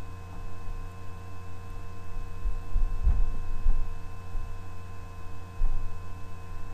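A steady electrical hum runs under the recording. Several dull, low thumps come about halfway through and another near the end. The thumping is put down to siblings elsewhere in the house.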